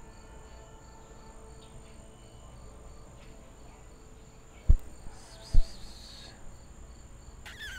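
Crickets chirping in a steady, regular pulse, with a constant high insect drone behind them. A little past halfway, two sharp dull thumps about a second apart stand out as the loudest sounds, with a brief hissing noise around them.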